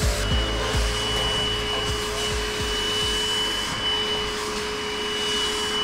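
Wet vacuum or carpet extractor running steadily with a high motor whine, its hand tool sucking across a car's floor carpet.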